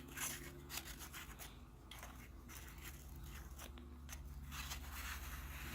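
Faint rasping and small clicks of a flashlight being handled and reassembled: the tail cap screwed back on over a 26650 battery, its threads scraping.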